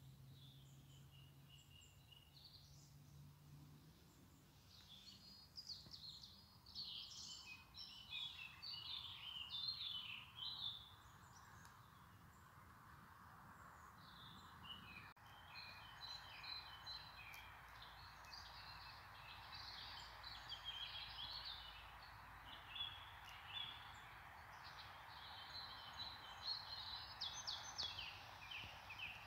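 Small birds chirping and twittering in scattered bursts, faint, over a steady low hiss.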